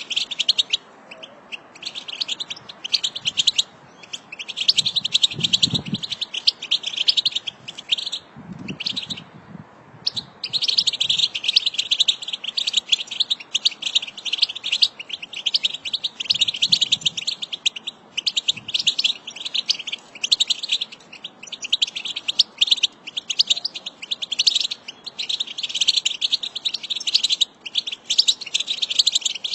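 A flock of European goldfinches twittering: a dense, continuous stream of rapid, high tinkling chatter calls from many birds at once. The calls break off briefly about nine seconds in.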